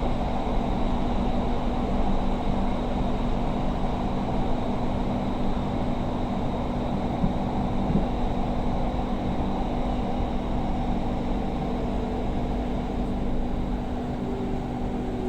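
Inside a Doha Metro train carriage running between stations: a steady rumble with a constant electric hum. Near the end a faint tone glides slightly down as the train nears the next station.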